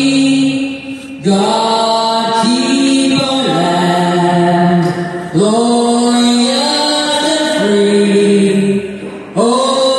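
Vocal music: a voice sings long held notes in phrases of about four seconds each, with short breaks between phrases.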